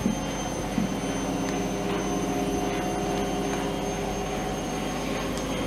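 Steady humming of a kitchen appliance fan, several even pitches held throughout. A light knock at the start and another about a second in come from the metal cake tin being set into the oven.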